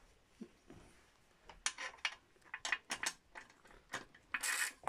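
Small metal clicks and clinks of nuts, bolts and hand tools being handled while bolts are fitted to an aluminium suspension arm. Quiet for the first second or so, then a quick irregular run of clinks with a short rattle near the end.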